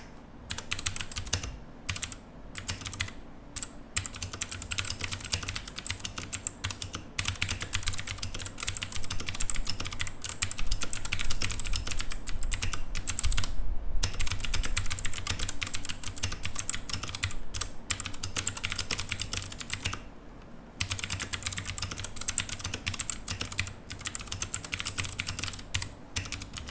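Typing on a Royal Kludge RK68 mechanical keyboard with blue switches, heard close to the keys: a dense run of sharp clicks with a few short pauses. This is the clicky sound of a blue switch.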